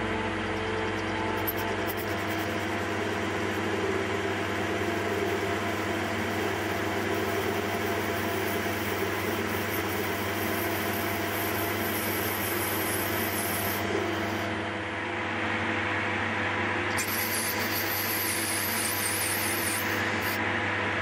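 CZ300/1 metal lathe running steadily, its motor and drive humming, while the radius ball turner's tool cuts a brass workpiece with a scraping sound. A higher, hissing scrape of the cut comes in about 17 seconds in.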